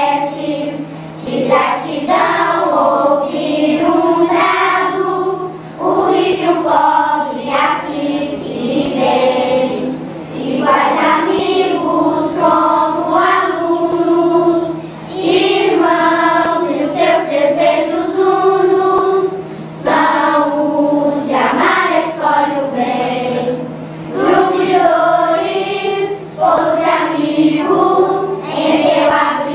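A choir singing a song in long held phrases, with short breaks every few seconds. A steady low hum runs underneath.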